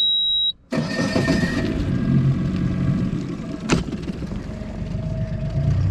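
A single high, steady electronic beep that cuts off about half a second in, then a boat motor running steadily with wind and water noise, and one sharp click near the end.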